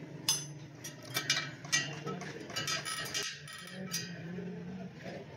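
Sharp metallic clinks, about half a dozen scattered over the first four seconds, as a spoke wrench knocks against the steel spokes and nipples of a motorcycle wheel while the spokes are adjusted on a truing stand. A steady low hum runs underneath.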